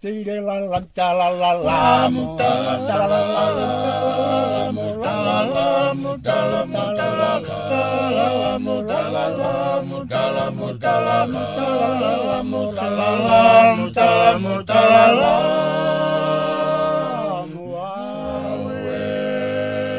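Tongan hiva kakala sung by a group of men in parts: fasi melody, lalau, kankano and laulalo bass, holding long chords. Near the end the voices slide down together and pause briefly before the next chord.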